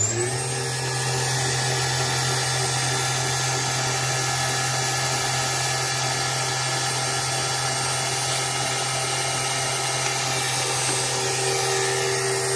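VFD-driven, water-cooled 2.2 kW milling spindle motor turning a G0704 mill through a belt drive, running steadily at high speed, near its 7750 rpm top end: an even whine made of several steady tones.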